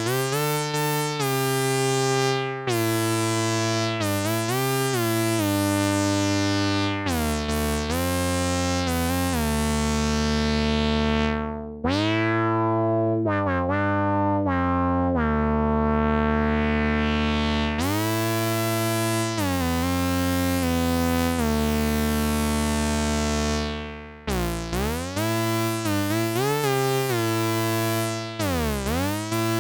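Behringer Odyssey analog synthesizer, a clone of the ARP Odyssey, playing a bright, buzzy patch. It holds notes that step from pitch to pitch, with the filter sweeping through the upper overtones as notes begin. The sound drops out briefly about twelve and twenty-four seconds in before new notes start.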